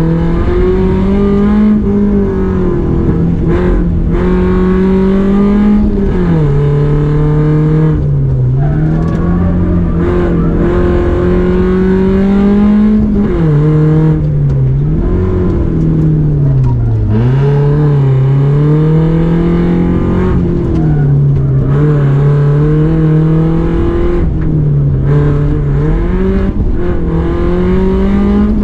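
Rally car engine driven hard through a timed run. Its pitch climbs in each gear, then drops sharply at every shift or lift, over and over.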